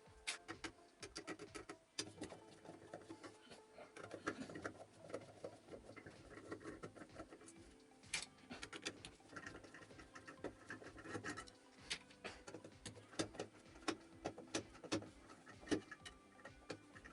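Small irregular metallic clicks and ticks of hand tools and motor parts being handled while the bolts of a vacuum cleaner motor are unscrewed.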